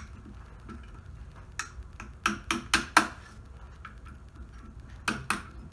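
Small hammer tapping a 3/32 pin punch to drive the trigger-group pins out of a rifle receiver: a quick run of about five sharp metallic taps around two to three seconds in, then two more near the end.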